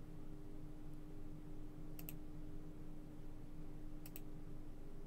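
Computer mouse clicks: two quick double clicks about two seconds apart, over a faint steady hum.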